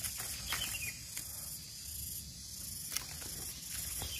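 Hand pruning shears snipping durian twigs: a few light clicks and one sharper snap about three seconds in, over a steady high hiss.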